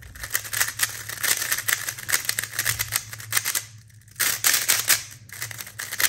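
Super RS3M V2 Ball Core 3x3 speed cube being turned fast by hand: a rapid run of light plastic clicks as the layers snap round, with a brief pause about two-thirds through.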